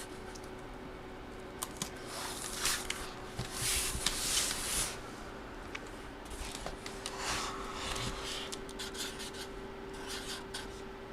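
Rustling and scraping of card-break packaging being handled, with scattered light clicks, over a faint steady hum.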